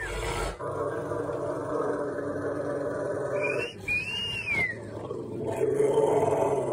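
Rottweiler's continuous rumbling growl while being rubbed, the contented 'rottie rumble' that sounds vicious but is not aggressive. About four seconds in, a high whining note rises and falls over it.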